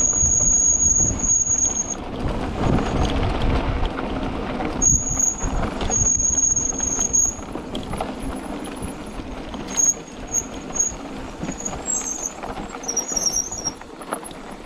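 A mountain bike's brakes squealing in long high-pitched tones while braking on a fast downhill, with the loudest squeals at the start and again about five to seven seconds in, then short chirps later. Under them, wind buffeting the microphone and knobby tyres rumbling over rough dirt, easing off near the end.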